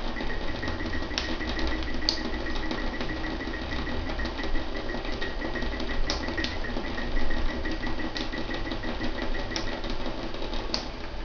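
A cat lapping water: a quick, steady run of small wet clicks, with a few louder clicks now and then.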